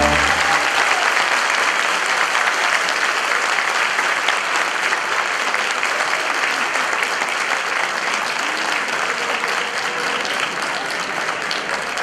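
Audience applauding steadily after a dance number, easing off slightly toward the end. The last notes of the dance music die away just as the applause takes over.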